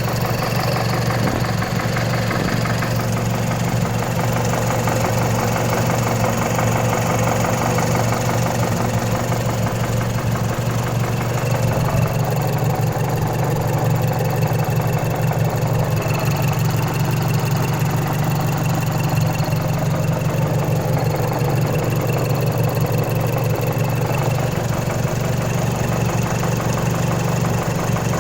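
Mazdaspeed 3's turbocharged 2.3-litre four-cylinder engine running steadily, with the timing chain noise the owner is recording it for.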